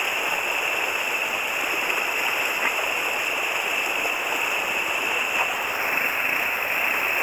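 Swollen, muddy river rushing over rapids: a steady noise of fast-flowing water with no let-up.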